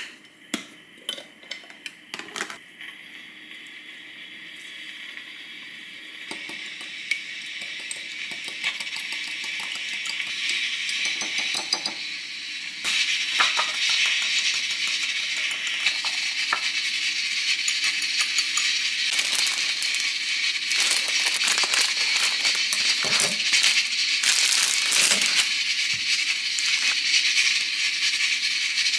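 A wire whisk beating egg whites in a glass bowl: rapid metal clinks against glass over a steady hiss that builds. Near the start come a few sharp clicks, the snap-lock clips of a plastic food container lid being opened.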